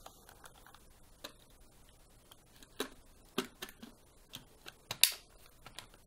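A few scattered light clicks and taps of hard plastic, the loudest about five seconds in, as the bin of a Dyson V6 cordless stick vacuum is handled and fitted back onto the cyclone.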